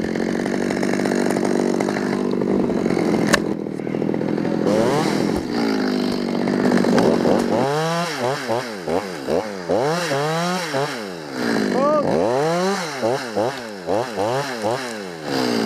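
Two-stroke chainsaw running at a steady speed, then from about halfway revved up and down in quick repeated pulses. A single sharp click stands out a few seconds in.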